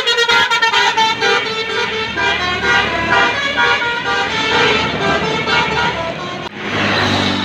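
Tour bus's basuri telolet horn playing a rapid melody of short, quickly changing notes. Near the end the tune breaks off suddenly, and a rush of noise with a low engine drone takes over.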